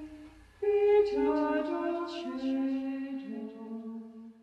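Unaccompanied singing: a slow melody of long held notes, with a new phrase entering about half a second in.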